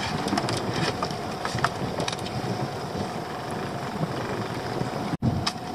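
Wind and sea noise around a small open boat, steady throughout, with a faint steady hum and scattered light clicks and knocks from handling the fishing rod and line. The sound drops out briefly about five seconds in.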